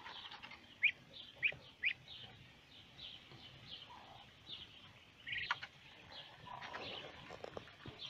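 Young ducklings peeping while they feed: a run of short, high, repeated peeps, with three louder rising peeps about a second in.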